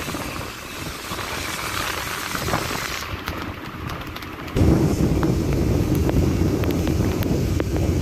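Sound of riding a motorcycle on a rain-wet road, heard from the rider's camera. A steady hiss of tyres and rain spray with scattered small clicks gives way abruptly, about halfway through, to loud low wind rumble buffeting the microphone.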